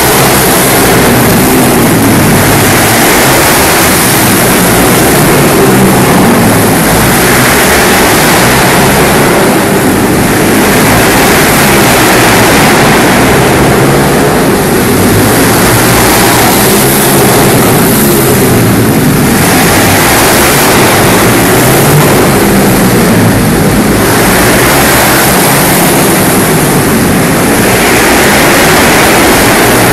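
Several small pit-bike engines revving hard as the riders lap an indoor kart track, the loud engine noise swelling and dipping every four to five seconds as bikes pass and go round the far side of the hall.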